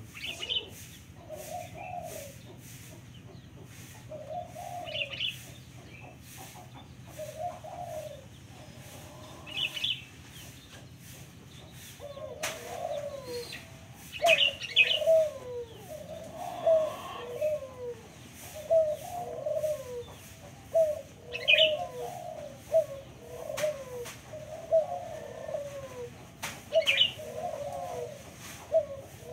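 A local puter dove (turtle dove) cooing. A few coos come well apart at first, then from about halfway through a quick run of repeated coos. A short high chirp from another bird comes every few seconds.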